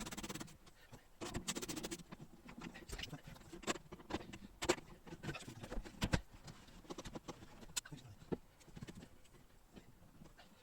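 Irregular clicks, taps and knocks of hand tools against metal and plastic parts inside a car door, as a rounded-off screw on the door lock is being worked at. A short rattling run comes about one and a half seconds in.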